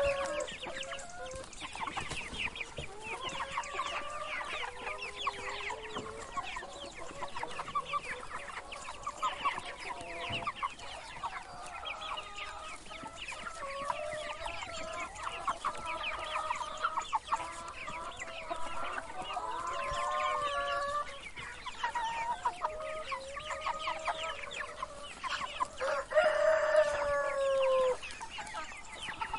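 A brood of chicks cheeping continuously in a dense chorus of rapid high peeps, mixed with longer, lower drawn-out calls; the loudest is a call falling slightly in pitch near the end.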